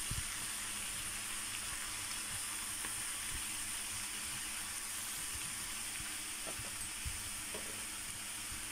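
Bok choy sizzling steadily as it stir-fries in a nonstick pan, the greens already wilted. A few light knocks come as wooden chopsticks turn the leaves.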